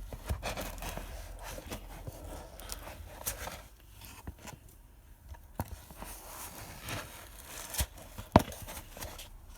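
Handling noises from kitchen utensils and containers while ingredients are added: light scrapes and scattered clicks, busier in the first few seconds, with one sharper click about eight seconds in.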